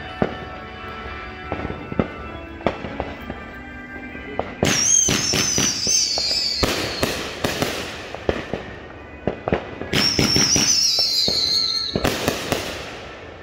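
Fireworks going off: scattered pops and sharp cracks, then two long high whistles that each slide slowly down in pitch, about five and ten seconds in, among loud bangs.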